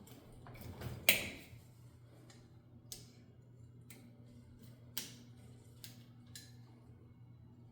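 Small metal clicks and scrapes of needle-nose pliers working at a cotter pin in a backhoe control linkage. One sharp click about a second in, after a brief scrape, is the loudest; a few lighter ticks follow, roughly one a second, over a steady low hum.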